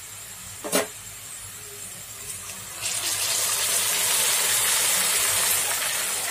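Hot oil sizzling loudly as wet ginger-garlic-coriander paste is poured onto frying onions in a pan, starting about three seconds in and staying steady. A brief knock comes about a second in, before it.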